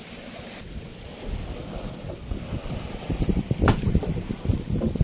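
Wind buffeting the microphone, its rumble growing stronger from about a second in, over a light wash of water at the shoreline, with one sharp knock a little past the middle.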